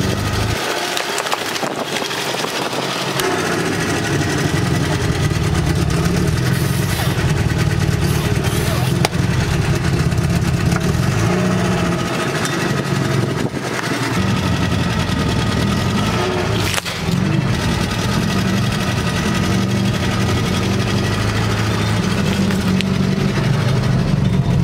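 A car engine runs steadily at low speed while its tyre rolls over and crushes plastic water bottles fitted with balloons and other objects. A few sharp cracks stand out now and then.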